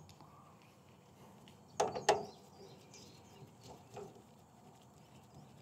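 Two sharp clicks close together about two seconds in, then a few faint ticks: small pump parts being picked up and handled on a metal work table.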